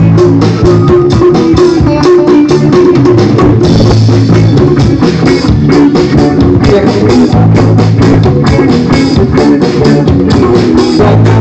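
Live reggae band playing amplified, loud: electric guitars over a drum kit keeping a steady beat, in an instrumental passage with no singing.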